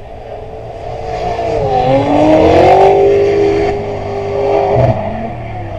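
Drift car engine revving hard as the car slides past under power, the pitch rising and dipping with the throttle; it is loudest about halfway through, then fades, with a short second swell near the end.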